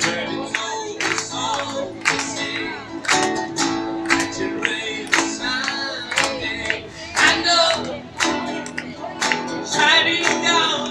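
Acoustic guitar strummed in a steady rhythm, played live, with a man's voice singing over it.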